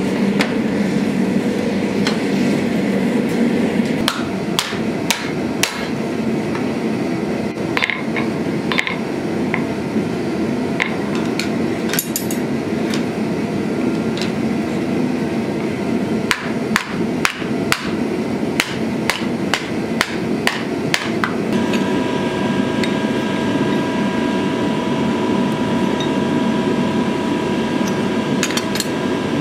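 Hand hammer striking a red-hot steel plate on an anvil: a run of irregular blows through the first two-thirds, over the steady rush of a gas forge burner. About two-thirds in, a steady machine hum starts.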